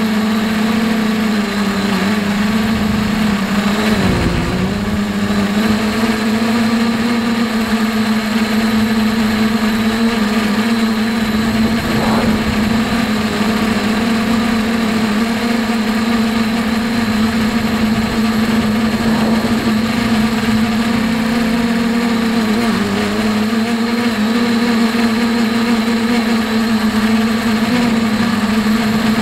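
H-frame quadcopter's electric motors and propellers humming steadily, recorded by the camera on board. The pitch dips briefly about four seconds in and again a little after twenty seconds.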